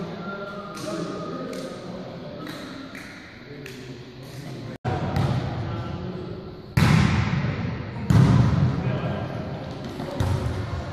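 Volleyball being struck in an echoing sports hall: a loud serve hit about two-thirds of the way in, a second hard hit about a second later and a lighter contact near the end, with lighter taps earlier and players' voices calling out.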